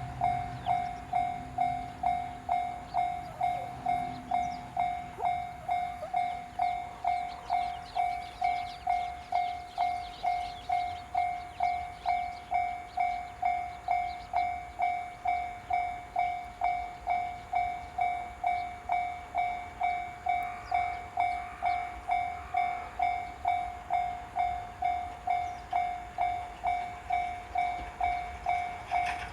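Japanese railway level-crossing warning bell ringing its electronic ding-ding at a steady pace of a little under two strokes a second, the signal that a train is approaching and the crossing is closed.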